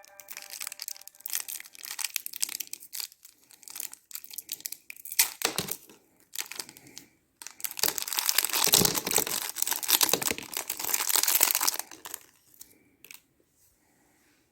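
Foil wrapper of a Kinder Surprise chocolate egg crinkling and tearing as it is unwrapped by hand. Scattered crinkles come first, then a longer, denser stretch of crinkling about halfway through, dying away near the end.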